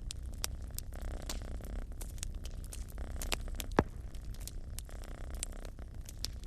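A cat purring in a steady low rumble that swells and eases with its breaths, over a wood fire crackling with sharp pops; the loudest pop comes a little before four seconds in.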